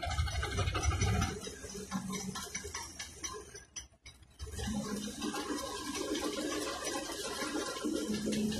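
Wind on the microphone and water noise, gusting hard at first and then easing, with a faint low hum underneath. The sound drops out almost completely for a moment about four seconds in.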